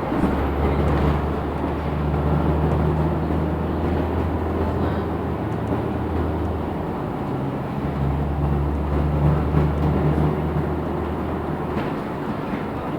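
LiAZ 6213.65 articulated city bus heard from inside the cabin while under way: a low engine drone over steady road and running-gear noise. The drone drops away briefly about seven seconds in, then comes back, and eases off near the end.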